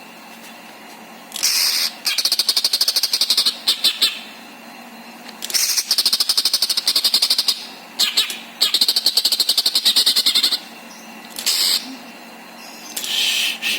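Cucak ijo (green leafbird) singing in full: bursts of very fast, rattling trills, about seven phrases each lasting half a second to two seconds, separated by short pauses.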